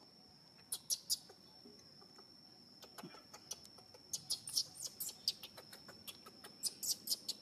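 Baby macaque giving many short, high-pitched squeaks in quick runs, over a steady high insect drone.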